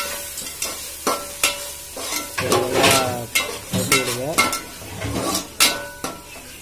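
Metal slotted spatula scraping and tapping around an aluminium pan, stirring onion-tomato masala with ginger-garlic paste and turmeric as it fries in oil, with a sizzle beneath the irregular strokes. Two short wavering tones come around the middle.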